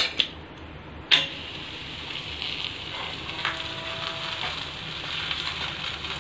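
Thepla flatbread laid on a hot, oiled iron tawa: a brief sharp sound about a second in as it goes down, then oil sizzling steadily under the dough on a low flame as it cooks.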